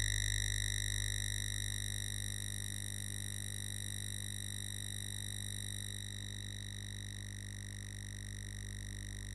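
A steady high-pitched electronic whine with a low hum beneath it, easing slightly in level over the first few seconds: electrical noise picked up by the recording.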